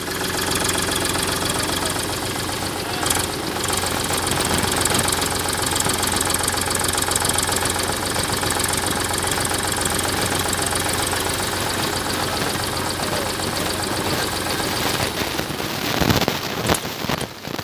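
Diesel tractor engines running steadily at close range, a Powertrac Euro 50 with a Mahindra 475 DI beside it, with a knocking diesel clatter.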